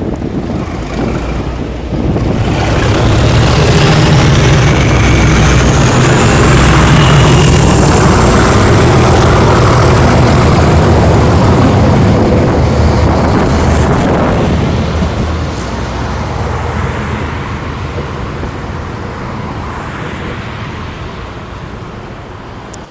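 Diesel locomotive engine running hard, with a high whine rising and settling in the first few seconds, then dying away gradually over about ten seconds. This fits an English Electric Class 37 engine that fires up and stalls shortly after starting.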